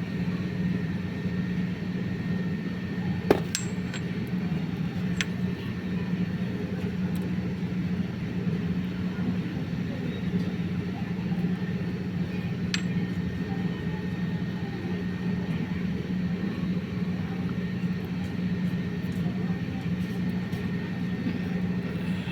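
A steady low hum with background noise, broken by a few sharp clicks: one about three seconds in, another a couple of seconds later, and a third near the middle.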